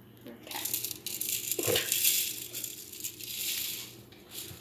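Sprinkles or coloured sugar rattling inside a small plastic shaker jar as it is shaken, in an uneven hissing rattle for about three and a half seconds.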